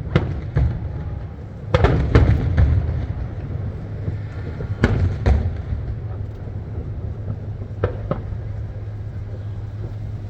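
Fireworks shells bursting overhead: sharp booms with rumbling echoes at irregular intervals. There are two near the start, a quick cluster around two seconds in, a pair around five seconds and another pair near eight seconds.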